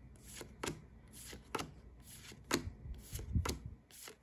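Pokémon trading cards being flipped through by hand, each card slid off the front of the stack and tucked behind the others with a short crisp snap, several times, roughly every half second to a second.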